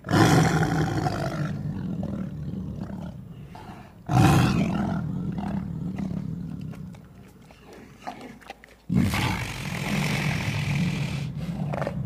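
Tiger giving three deep, rasping roars in a row, about four to five seconds apart, each starting suddenly and tailing off over a couple of seconds.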